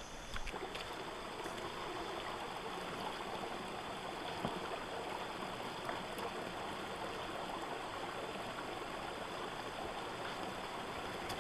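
Steady rushing of shallow river water, with a few faint ticks and splashes.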